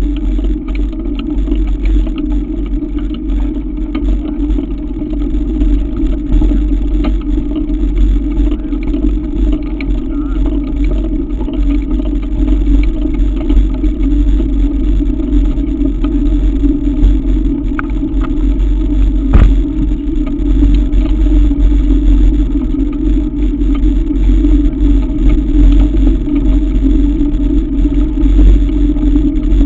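Wind rumbling on a bike-mounted action camera's microphone together with the steady noise of mountain-bike tyres rolling over a gravel track, with one short knock about two-thirds of the way through.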